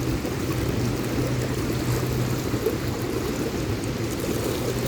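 Steady rushing of wind and lake water with no distinct events: choppy waves washing against the shore or hull while wind buffets the microphone.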